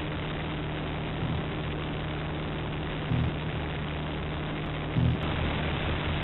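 Steady drone of a high-wing light aircraft's engine and propeller heard inside the cabin, a constant hum under an even rushing noise. Short, louder pitched sounds come in about three and five seconds in.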